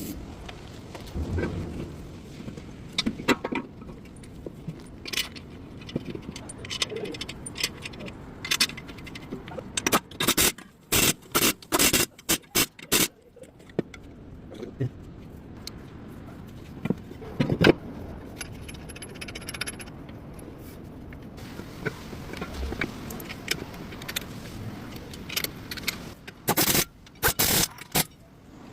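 Metal tools and parts clinking, scraping and rattling during work on a car's front wheel bearing and hub, with sharp knocks scattered throughout and quick runs of knocks around the middle and near the end.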